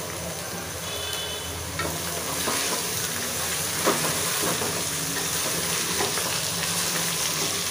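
Sliced onions and bitter gourd frying in hot oil in an aluminium pressure cooker, a steady sizzle. From about two seconds in, a wooden spoon stirs them, with a few knocks and scrapes against the pot, the sharpest about four seconds in. The onions are being fried until translucent.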